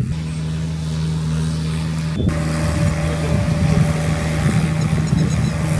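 Sonalika GardenTrac compact tractor's diesel engine running steadily under load while its rotary tiller churns wet paddy mud, with a brief break about two seconds in.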